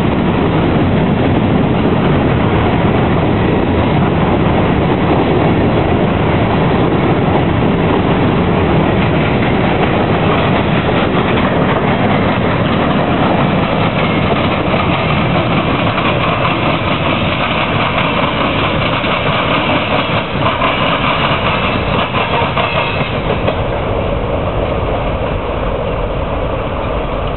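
A freight train's cars rolling past, their steel wheels clattering and rumbling on the rails. A higher steady ringing from the wheels joins for several seconds past the middle, and the sound eases a little near the end as the last cars go by.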